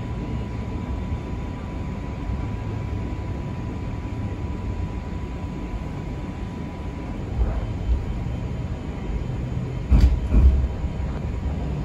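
Streetcar running on its rails, heard from inside the car: a steady low rumble, with a faint steady tone that fades out about seven seconds in and a few heavy thumps near the end.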